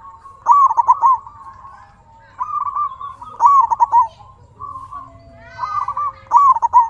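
Zebra dove (perkutut) cooing: about five short, rolling, warbled coo phrases repeated with brief pauses between them.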